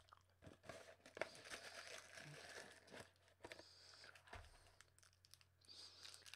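Faint crinkling and rustling of candy wrappers as a cardboard candy box is rummaged through, with scattered small clicks and taps.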